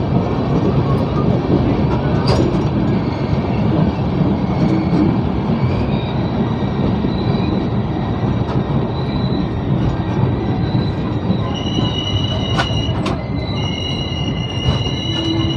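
Passenger express train running on the rails, a dense steady rumble. About eleven seconds in, a high steady squeal from the wheels joins it, with two sharp clicks soon after.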